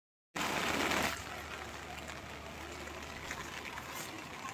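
Steady rain falling, an even hiss of rainfall and running water, with a louder rush of noise for under a second near the start, just after a brief cut-out of the sound.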